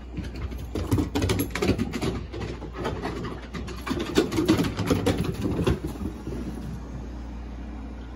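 Puppies' paws and claws pattering and scrabbling on wooden deck boards as they chase and play-fight, in quick irregular clicks and scuffles. The clicking stops about six seconds in, leaving a steady low rumble.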